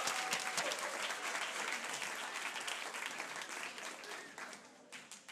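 Audience applauding, many hands clapping, gradually fading and dying out about five seconds in.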